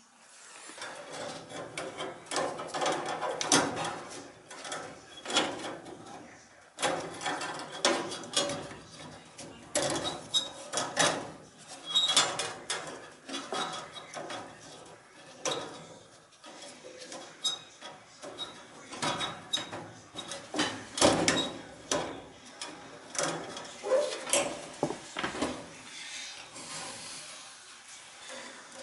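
Hand tools and metal parts of a gas space heater clinking, knocking and scraping irregularly as the heater is worked on to replace its thermocouple.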